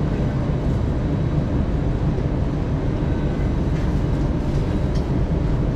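Metro train's running noise heard from inside the carriage: a steady low rumble as it rolls slowly along the platform, arriving at the station.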